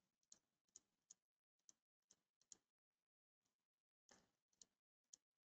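Near silence broken by about a dozen faint, irregular clicks of a computer mouse.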